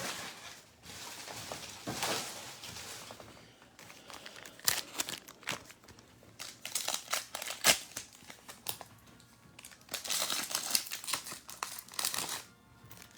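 Foil wrapper of a football trading-card pack being torn open and crinkled, in several irregular bursts of crackling with a few sharp clicks.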